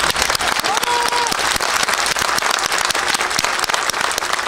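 A crowd clapping, a dense irregular patter of many hands, with one brief raised voice about a second in.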